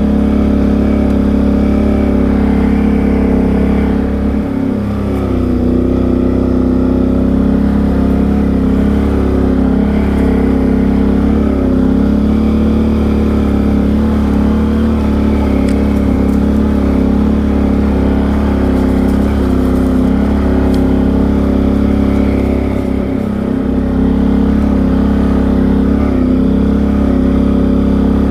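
Can-Am Outlander XMR 850 ATV's V-twin engine running steadily while riding, its note easing off briefly about four seconds in and again about twenty-three seconds in before picking back up.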